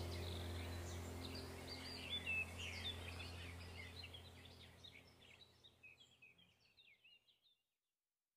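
Many birds chirping and singing over a low steady hum. Both fade out about halfway through, and the last few seconds are silent.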